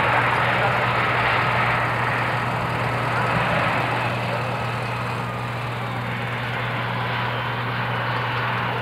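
Bombardier CRJ-900 airliner's two rear-mounted General Electric CF34 turbofans during the landing rollout: a steady jet roar with a faint whine, slowly fading.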